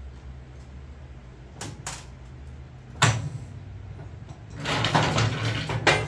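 Metal floor jack being pulled out from under a riding mower: a sharp clank about three seconds in, then a second and a half of scraping, rattling metal noise that ends in another clank. A low steady hum runs underneath in the first half.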